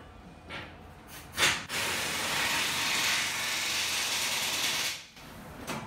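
A knock, then compressed air hissing steadily from a pneumatic tyre-changing machine for about three seconds, cutting off suddenly.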